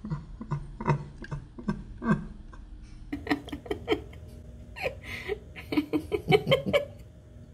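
Young children giggling and babbling, with scattered clicks and knocks.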